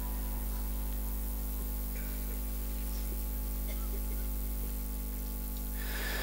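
Steady electrical mains hum from the public-address microphone and amplifier, with faint hiss. A soft rush of noise rises near the end.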